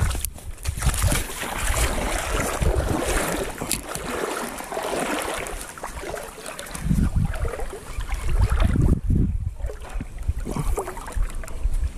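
Wind buffeting the microphone in irregular heavy gusts, over a steady rushing hiss.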